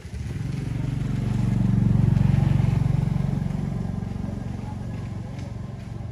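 A motor vehicle's engine passing by, growing to its loudest about two seconds in and then slowly fading.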